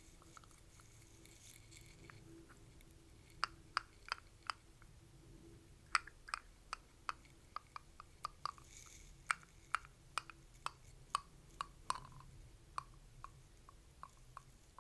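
Upper and lower full dentures clicking together: sharp, short clicks at an uneven pace of about two or three a second, starting about three seconds in, after the lower denture is seated.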